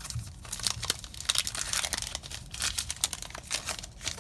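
Foil wrapper of a Magic: The Gathering Kaladesh booster pack crinkling and tearing as it is opened by hand, a fast run of short crackles.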